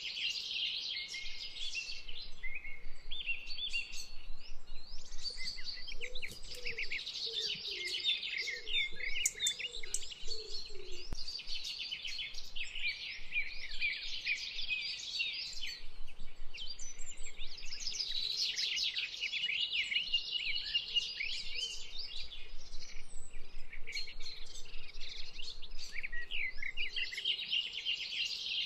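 A chorus of many small birds chirping and trilling without a break, with a few lower calls between about six and ten seconds in.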